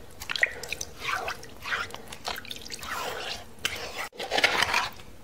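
A hand swishing water over a stone wet grinder's roller and basin to rinse off ground paste: a string of irregular wet swishes and drips.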